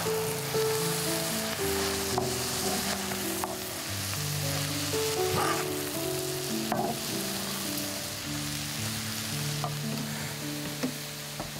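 Shredded cabbage sizzling in a hot frying pan, stirred now and then with a wooden spatula that gives a few light scrapes and taps. Background music plays underneath.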